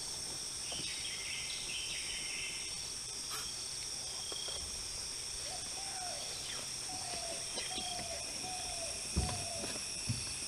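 Steady high-pitched insect drone in forest, with a bird calling a short note about five times in the second half. A single low thump comes near the end.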